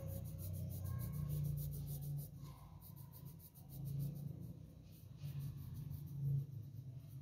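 Graphite pencil scratching on drawing paper in repeated short strokes, over a steady low hum.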